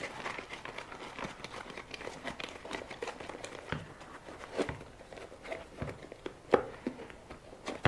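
Handling noise from an RC car tyre and its foam insert being pushed and worked with the fingers: irregular crinkling, rubbing and light taps, with one sharper tap about six and a half seconds in.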